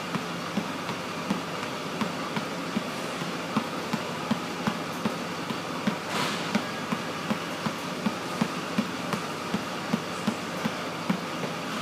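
Basketball bounced hand to hand in a V-dribble, one hand working the ball side to side in front of the body, giving an even run of thumps about two and a half bounces a second over a steady background hiss.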